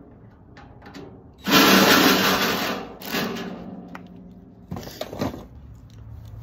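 Cordless drill driving a screw into the metal BBQ pit frame: the motor runs in a burst of about a second and a half and winds down, then runs again briefly. A few sharp knocks follow near the end.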